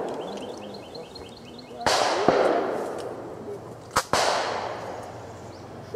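Two shotgun shots about two seconds apart, each followed by a long fading echo.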